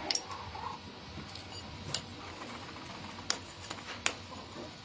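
Four scattered sharp metallic clicks over faint background noise: a steel rod knocking against the rim of a steel sand-casting flask as the packed molding sand is struck level.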